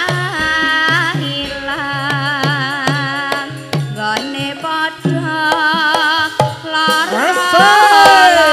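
A woman singing a Javanese song with vibrato into a microphone, over gamelan accompaniment with regular hand-drum strokes. Near the end her voice climbs in pitch and grows louder.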